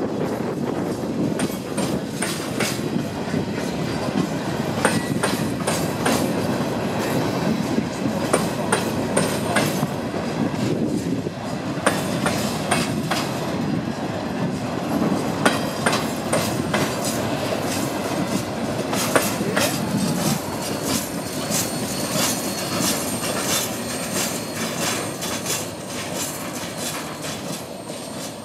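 Empty Herzog ballast cars rolling past at speed, their steel wheels clicking over rail joints with thin flange squeals. The noise eases off near the end as the tail of the train goes by.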